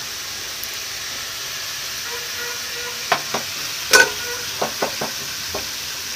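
Vegetables sizzling as they fry in a steel kadai, a steady hiss. From about halfway through, a metal spatula scrapes and knocks against the pan several times as they are stirred.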